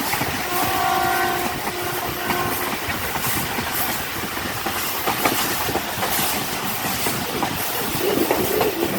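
A train horn sounds for about two seconds near the start, one steady chord. Under it and after it, a moving passenger train rumbles, with the clickety-clack of wheels over rail joints.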